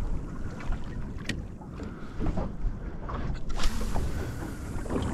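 Wind buffeting the microphone over water around a small boat, with a single sharp tick about a second in and a louder rush of wind from about three and a half seconds in.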